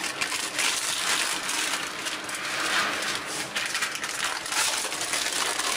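Thin plastic sheet crinkling and rustling as hands knead and press cashew dough wrapped inside it.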